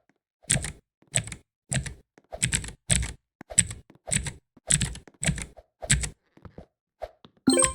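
Mechanical keyboard switches on a keyboard tower being pressed one at a time in a steady rhythm, each a sharp clack with a deep thock, a little under two a second. A louder clack near the end rings briefly.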